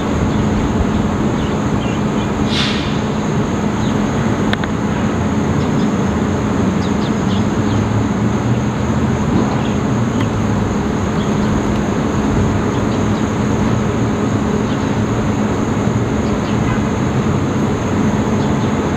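Steady distant rumble with a constant high-pitched hum over it, and a short high chirp about two and a half seconds in.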